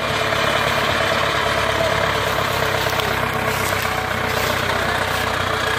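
Engine of a Hindustan 50 hp tractor, a diesel, running steadily as the tractor moves.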